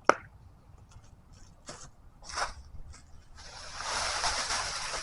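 Dry sticks and tinder being handled: a sharp snap, a few scattered crackles, then a steady dry rustling from about three and a half seconds in.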